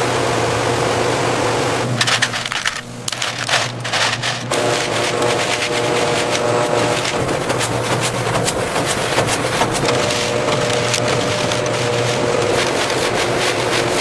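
Dense crackling and crunching over a steady machine hum, with a burst of sharper, louder cracks about two seconds in.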